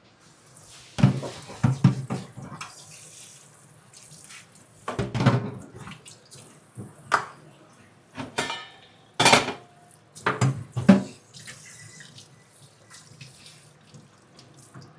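Water running from a kitchen tap into a sink in short spells, with several clusters of knocks and clatter from utensils being handled at the sink.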